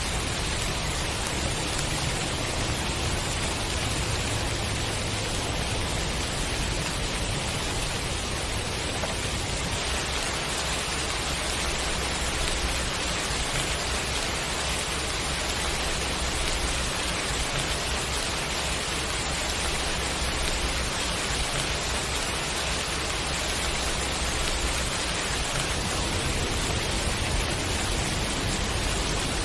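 Steady rain shower falling, an even, unbroken hiss.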